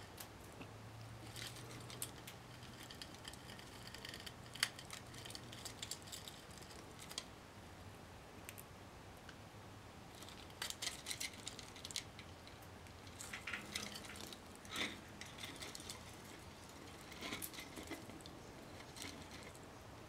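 Fallow parrotlet's beak picking, nibbling and crunching at a wooden foraging kabob and the seeds hidden in it: faint, irregular clicks and crackles that come in bunches.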